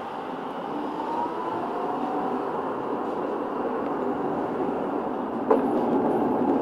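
Munich R 2.2 low-floor tram running along its track, heard from on board: a steady rolling rumble with a faint motor whine that grows louder. About five and a half seconds in, a single sharp clack.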